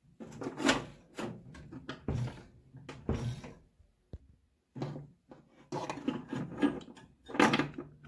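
Irregular clicks, knocks and scraping of hands handling wiring and a power cord and plug inside an opened microwave oven, a handful of separate handling noises with short gaps between them.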